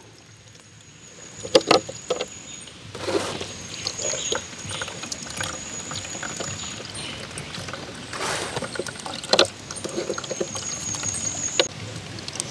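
Coconut milk being hand-squeezed from wet grated coconut and pouring into a plastic jar: liquid trickling and splashing with squelching handfuls of coconut, plus a few sharp knocks.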